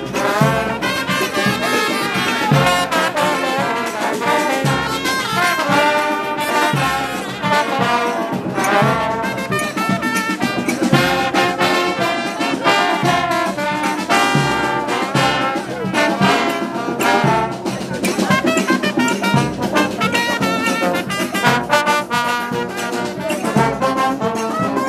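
Brass-band music: trumpets and trombones playing a melody over percussion.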